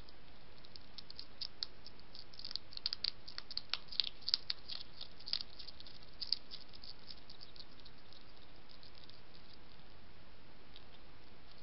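European hedgehog crunching dry kitten biscuits: a rapid, irregular scatter of small crisp clicks, thickest in the first half and thinning out toward the end, over a steady hiss.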